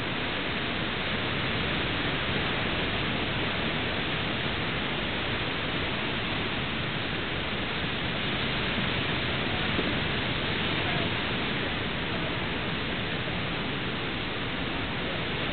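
Ocean surf washing over a rocky shore: a steady, even hiss of waves.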